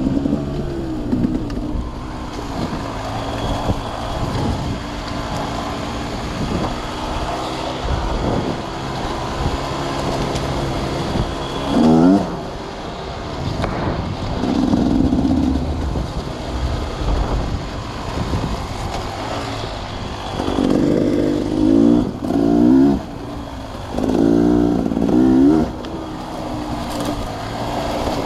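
Sawmill machinery running steadily with an engine note, swelling louder and sliding up and down in pitch about twelve seconds in, again briefly a few seconds later, and three times near the end.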